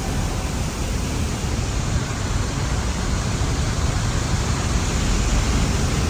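Water released over a dam spillway, falling down a tiered waterfall: a steady, unbroken rush that is heaviest in the low end.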